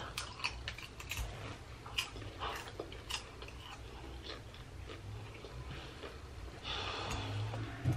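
Popcorn being chewed close to the microphone: scattered crisp crunches and mouth clicks, most frequent in the first few seconds and then sparser, over a steady low hum.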